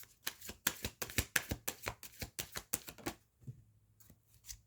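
A tarot deck being shuffled by hand to draw a clarifying card: a quick run of card flicks and snaps for about three seconds, then a few softer taps.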